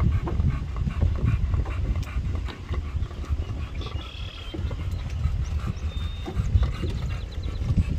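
Wind buffeting the microphone in a low, uneven rumble, with a few faint, short bird chirps about halfway through and again later.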